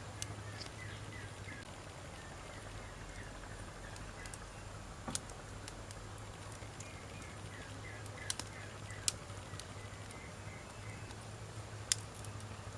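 Wood fire burning, with a handful of sharp, irregular pops and snaps from the burning logs over a steady soft hiss.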